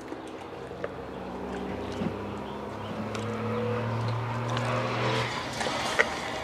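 A steady engine hum that grows louder toward the middle, with a few soft knocks as pieces of raw beef are dropped into an enamel pot of water.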